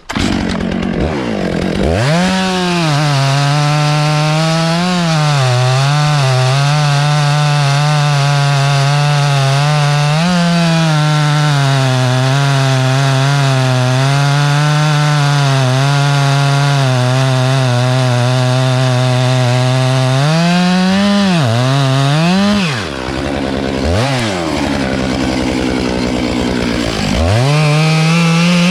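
Two-stroke chainsaw revved up and held at high throttle while cutting wood, its pitch wavering slightly as the chain bites. Past the middle it briefly drops back and revs up twice, then idles lower before revving up again near the end.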